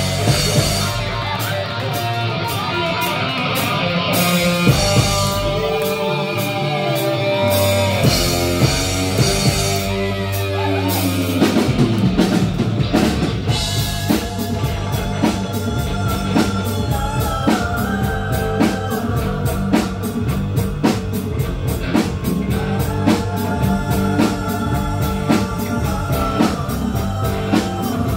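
Rock band playing live: electric guitar and drum kit, with bending, sliding lead lines early on giving way to a steady, even drum beat from about halfway.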